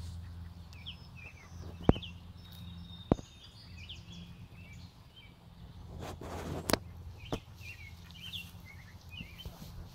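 Small songbirds chirping and singing in short, repeated phrases against a low steady rumble. Two sharp clicks stand out about two and three seconds in, and a short rustle comes around six seconds in.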